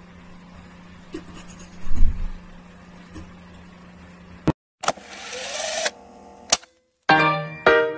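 A steady low hum with a dull thump about two seconds in. After a sudden cut comes about a second of hiss with a rising tone, and piano music begins near the end.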